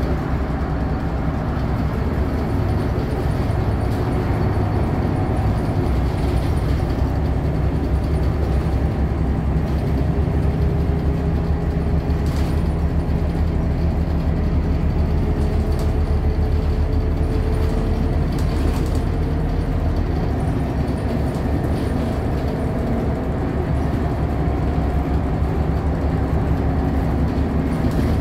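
Inside a moving low-floor city bus: the steady drone of the engine and drivetrain with road noise, a faint whine drifting slowly in pitch, and a few light clicks from the cabin.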